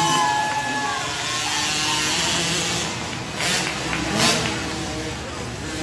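Several small 50cc youth dirt bike engines running as the bikes race around the track, with two brief louder bursts about three and a half and four seconds in.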